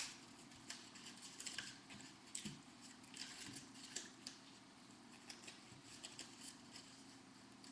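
Faint rustling and light clicking of paper strips handled and threaded one by one onto a small metal brad, with a sharper click right at the start.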